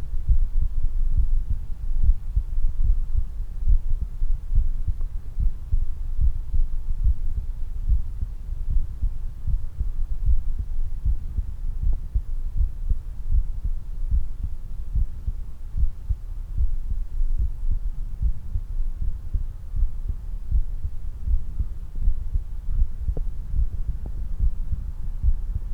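Human heartbeat after exercise, a continuous run of low beats.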